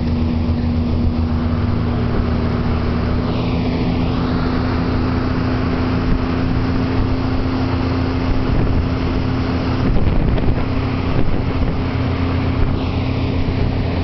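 Sightseeing boat's engine running steadily at cruising speed with a constant low drone, over the rush of water from its wake.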